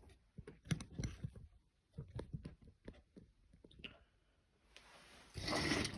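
Irregular small plastic clicks and knocks from a compact smoke alarm being handled, followed by a short rush of noise near the end.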